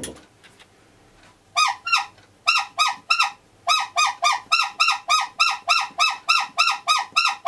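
Rubber bulb horn on a BSA Bantam D3's handlebars squeezed over and over, starting about a second and a half in: a quick run of short honks, about three a second, each bending in pitch. The repaired horn is working.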